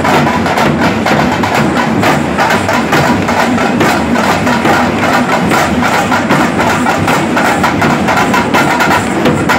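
Street drum band playing loud, fast, unbroken beats on large double-headed barrel drums struck with sticks, together with a smaller hand drum.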